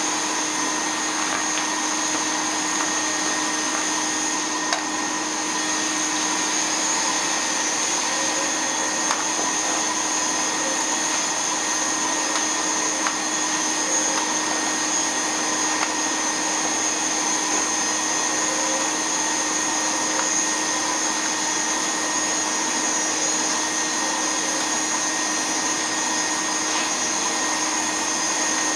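Antique Shōwa-era Brother vacuum cleaner, rated at 550 W of suction power, running steadily on a suction test: a constant rushing of air with a steady motor whine. A few faint clicks are heard along the way.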